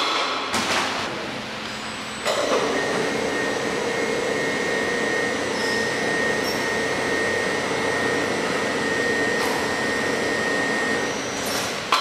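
Automatic stretch-hood wrapping machine running: its drive motors give a steady hum with a higher whine as the film-handling heads travel over the refrigerator. A clunk comes near the start, another knock about two seconds in as the motors start, and a clunk at the end.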